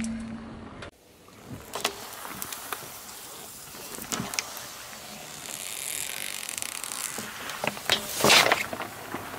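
Plastic drink bottle being crushed under a car tyre on asphalt: scattered crackles of the plastic giving way, a hiss around the middle as the drink squirts out, and a louder burst of crackling and crunching about eight seconds in as the bottle flattens.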